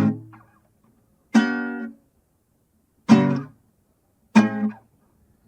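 Guitar chords struck one at a time, four of them about a second or more apart, each ringing briefly and then cut short.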